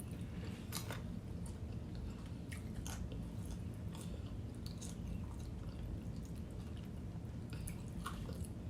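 A person chewing and biting food close to the microphone, with irregular crisp crunchy clicks, over a steady low hum.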